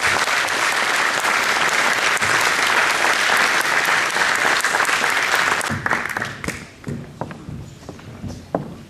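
Hall audience applauding a certificate presentation: dense, sustained clapping that dies away about six seconds in, leaving scattered single claps.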